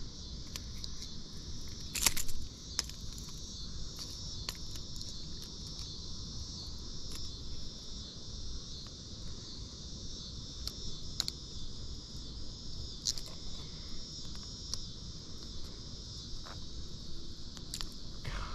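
Steady high-pitched chorus of insects, with scattered small clicks of handling and one short, louder clatter about two seconds in.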